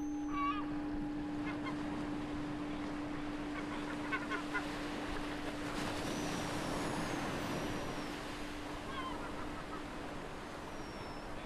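A meditation bell's long ringing tone slowly dies away over waves washing on a beach, which swell about six seconds in. Seagulls call several times: near the start, about four seconds in and about nine seconds in.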